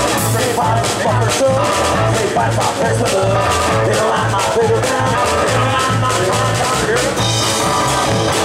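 Live band playing: a man singing lead over an electric hollow-body guitar, an upright bass pulsing steadily underneath and a drum kit keeping the beat.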